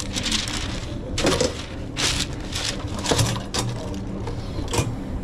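Irregular kitchen work noise: about half a dozen short scrapes and knocks at uneven intervals, over a steady low hum.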